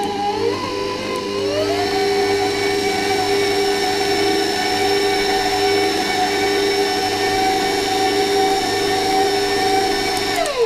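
Electric stand mixer with a paddle attachment running, beating flour and mashed banana into cake batter: a steady motor whine whose pitch wavers in the first two seconds and then holds, winding down with a falling whine as it is switched off at the very end.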